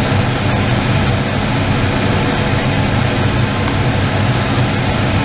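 A steady low mechanical hum with an even hiss over it, running without a break.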